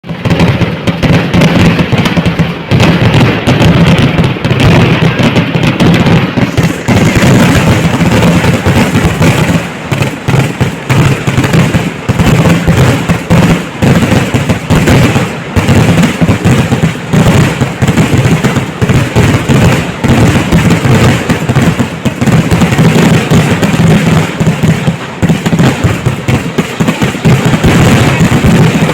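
Temple-festival fireworks barrage: a dense, unbroken volley of firecracker explosions going off in rapid succession, very loud throughout.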